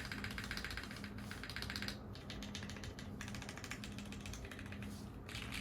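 Rapid typing on a Fukuro mechanical keyboard with lubed Cherry MX Hyperglide Brown tactile switches, a polycarbonate top-mount plate, no foam and GMK doubleshot keycaps, on the alpha and modifier keys. Fast, dense key clacks with brief lulls about two seconds in and near the end.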